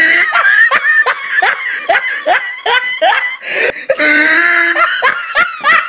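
Laughter: a run of short, quickly rising bursts, about two or three a second.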